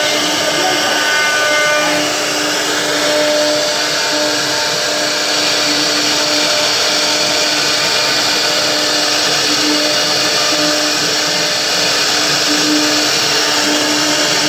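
CNC machine running steadily: a power-tool motor noise with a held tone and strong hiss. A few higher tones fade out about two seconds in.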